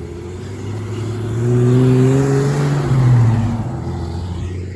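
A motor vehicle driving past: its engine hum and tyre noise swell over about two seconds and fade again, the engine note dropping slightly as it goes by.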